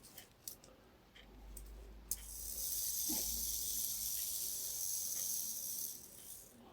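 Wells Brimtoy clockwork drummer's spring motor running down, its gear train and flywheel giving a steady high whirr for about four seconds after a click about two seconds in. The motor runs freely, no longer jamming now that its loose flywheel is secured with thread lock.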